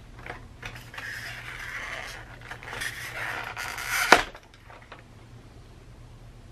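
Clear plastic packaging sleeve rustling and scraping against the foam as it is worked off a boxed model locomotive, ending in one sharp plastic snap about four seconds in.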